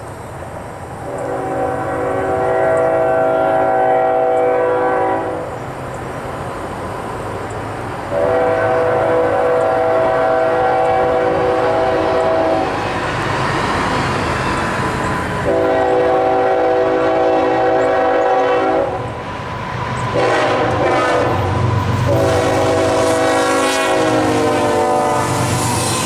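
Nathan K5HL five-chime air horn on a CSX GE ES44AH locomotive sounding a series of long blasts with a brief one before the last, over the growing rumble of the approaching diesel locomotives. The final blast drops in pitch as the lead locomotive passes close by.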